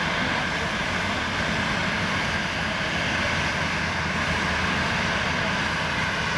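Boeing 737 jet engines running at taxi power as the airliner rolls slowly past: a steady whine over a low rumble.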